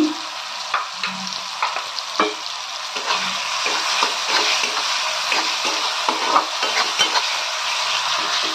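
Chopped tomatoes sizzling in hot oil in a kadai, stirred and scraped with a metal spatula against the pan several times a second over the steady hiss of frying.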